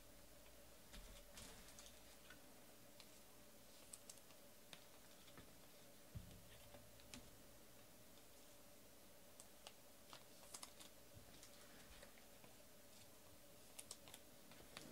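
Near silence with faint, scattered clicks of typing on a computer keyboard, coming in short irregular runs.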